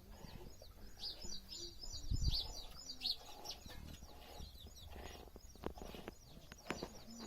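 Small birds chirping rapidly and continually, thinning out after about four seconds. A low thud about two seconds in is the loudest sound, and a few sharp knocks come later.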